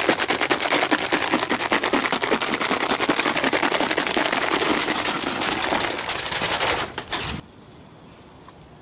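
Plastic bottle holding liquid toilet-bowl cleaner and aluminium foil shaken hard to mix them, a fast, continuous rattling and crackling that stops abruptly about seven seconds in.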